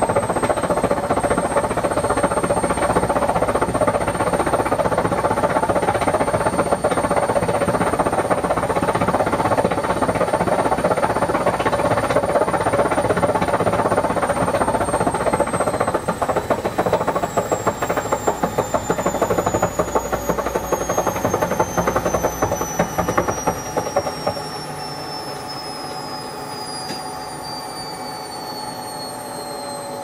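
Whirlpool front-loading washing machine spinning: a loud drum rumble with a high motor whine. About halfway through the whine starts falling in pitch as the spin slows, and about three-quarters of the way in the rumble drops away, leaving a quieter, still-falling whine.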